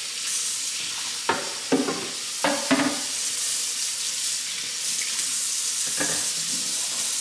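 Kitchen tap running steadily into a sink, a constant hiss with a few short louder sounds over it, at about one, two and a half, and six seconds in.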